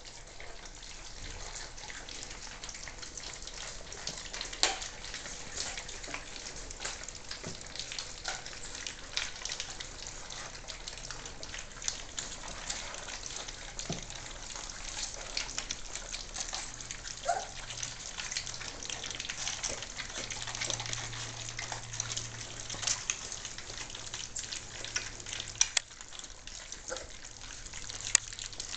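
A litter of three-week-old German Shorthaired Pointer puppies lapping and slurping wet mash from a tray: a dense, steady crackle of small wet smacks and licks, with a few sharper clicks.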